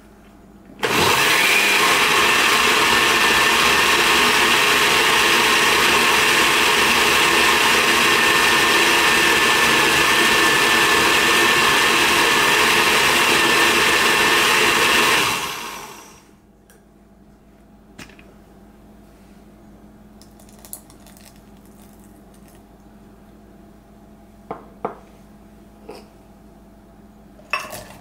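Countertop blender running, blending chilies and garlic in vinegar: it starts abruptly about a second in, runs steadily with a faint high motor whine, then winds down. A few light clicks and clinks follow near the end.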